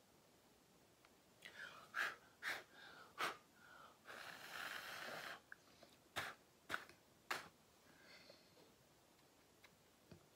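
A person breathing close to the microphone: two quick runs of three short, sharp sniffs or breaths, with a longer breathy exhale between them, about four to five seconds in.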